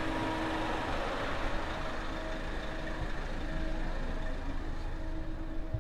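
Minivan's engine idling close by: a steady hum with a steady tone running through it.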